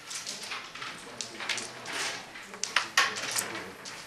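Irregular sharp clicks of hard carrom pieces, striker and coins, tapping and knocking, about a dozen, the loudest cluster about three seconds in.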